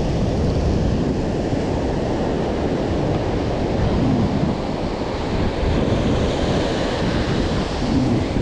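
Ocean surf breaking and washing up the beach as a steady rush, with wind rumbling on the microphone.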